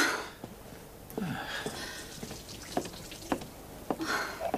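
Scattered light clinks and knocks of crockery and cutlery being handled on a dinner table, with a soft rustle about a second in.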